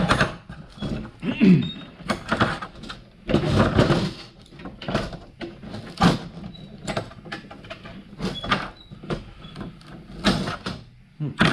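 Old metal-backed felt strip being pulled and coiled off a stainless window flipper trim piece with a hand tool: repeated irregular scraping, clicking and clinking of metal on metal.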